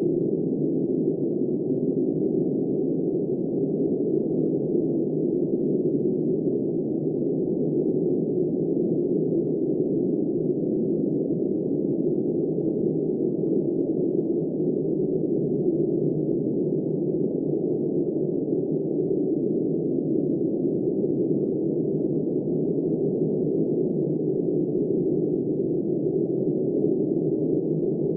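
Steady, muffled rush of blizzard wind, low and unbroken, with no gusts, rises or falls.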